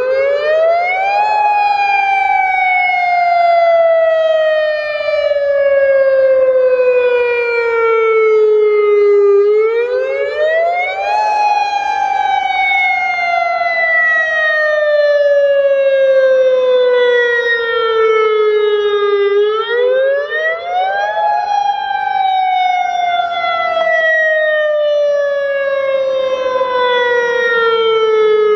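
AHAB tsunami warning siren sounding its wail: the pitch climbs quickly for about two seconds, then slides slowly down for about eight, and the cycle repeats three times. It is the tsunami evacuation alert tone, sounded here as a test.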